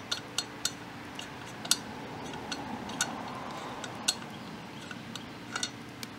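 Light metallic clicks and clinks, irregular and scattered, from the motorcycle's rear wheel bolts being unscrewed by hand and handled, over a faint steady low hum.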